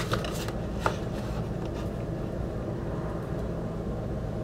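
Cardboard box and paper insert being handled, a few short taps and rustles in the first second, over a steady low room hum.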